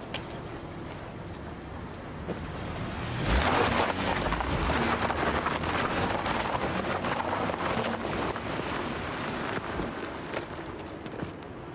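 Black BMW 3 Series saloon pulling away across a sandy, gritty lot. The engine starts pulling suddenly about three seconds in, and the tyres crackle over the grit before the sound fades near the end.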